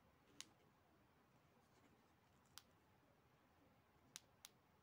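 Four faint, sharp clicks from handling a Polaroid iD922 digital camera in its silicone case and pressing its buttons, two of them close together near the end, over near-silent room tone.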